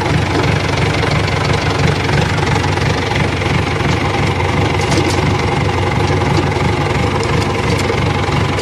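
John Deere 2450 tractor's diesel engine idling steadily, moments after being started.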